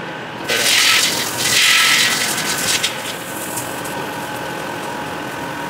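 Raw shelled peanuts rattling and pouring as they are tipped from a plastic tub into the steel bowl of a wooden ghani oil press. The rattle is loudest for about two seconds shortly after the start, then goes on as a lighter trickle.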